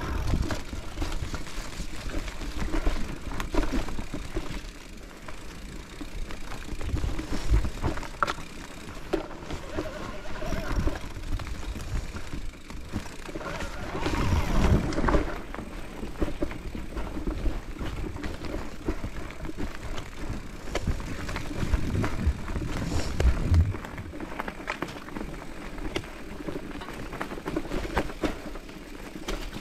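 Mountain bike being ridden over a rough forest trail: a steady rush of tyre and trail noise with irregular low thumps and rattles as the bike hits bumps, heaviest at a few moments about a third and three quarters of the way through.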